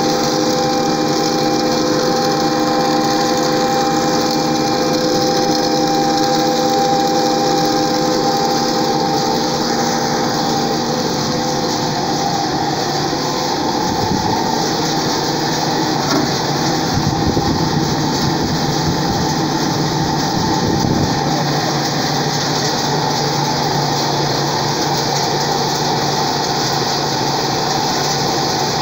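Soybean oil press and extrusion machinery running steadily, with a motor hum that fades after the first third. There are bouts of low rumble in the middle.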